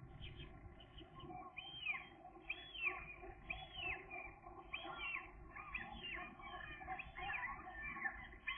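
Gull calling: a run of repeated down-slurred calls, roughly one every two-thirds of a second, starting about a second and a half in, over a low steady rumble.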